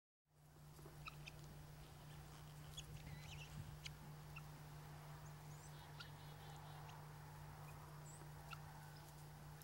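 Guinea fowl foraging, giving faint short chirps and peeps scattered through, over a steady low hum.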